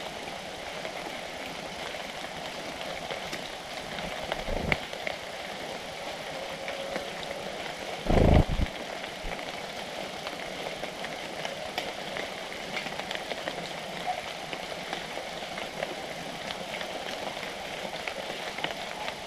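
Steady outdoor background hiss with faint scattered ticks. A dull low thump comes about four and a half seconds in, and a louder one about eight seconds in.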